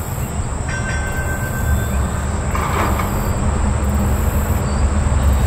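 A streetcar running on its rails, a low steady noise that grows louder, with a brief thin steady squeal between about one and two seconds in.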